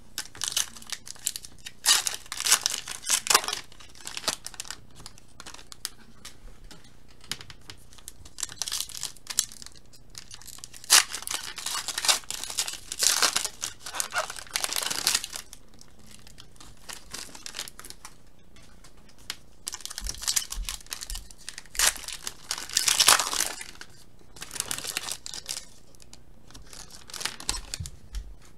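Plastic trading-card pack wrappers being torn open and crinkled by hand, in several bursts of tearing and rustling with quiet gaps between.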